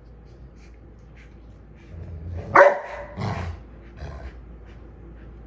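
Golden retrievers play-fighting, one giving a loud, sharp bark about two and a half seconds in, followed straight away by a shorter, rougher second bark.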